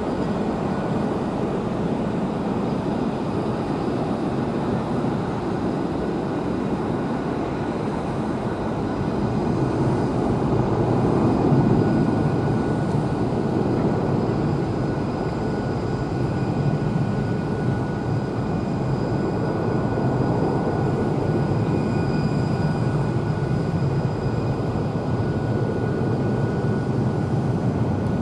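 McDonnell Douglas MD-11F freighter's three turbofan engines at takeoff thrust as the jet climbs out: a steady rushing noise with a thin whine on top, swelling a little about ten to thirteen seconds in.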